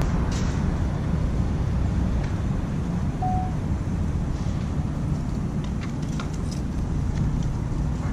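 Steady low outdoor rumble with no clear source. A short high beep comes about three seconds in, and a few faint clicks follow later.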